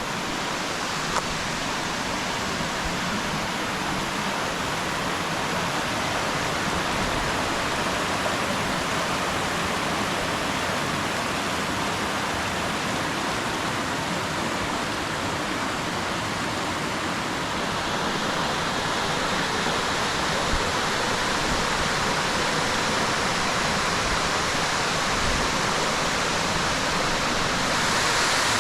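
A wide 20-foot waterfall rushing steadily, a constant even wash of falling water. It grows a little louder near the end.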